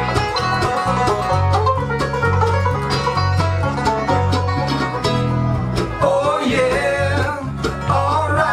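Bluegrass band playing live: five-string banjo picking to the fore over mandolin, guitar and a pulsing bass line. A man's voice comes in singing about six seconds in.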